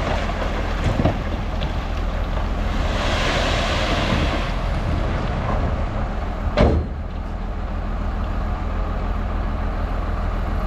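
Heavy diesel earthmoving machinery running steadily. A rushing hiss rises for about a second and a half near the middle, and there is a single sharp knock about two-thirds of the way through.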